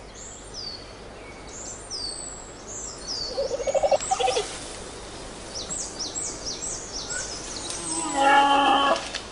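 Giant panda giving goat-like bleating calls, a short one about three and a half seconds in and a louder, longer one near the end: a mating-season call. Birds chirp throughout with repeated short, falling notes.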